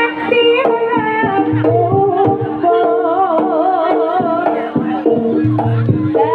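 Live jaranan accompaniment music: hand drums beating under held metallic gamelan notes and a wavering, ornamented melody line that runs without a break.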